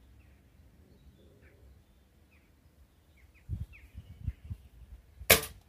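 A BSA Lightning XL SE .177 air rifle fires a single sharp shot near the end. Before it there are faint bird chirps and some low rumbling.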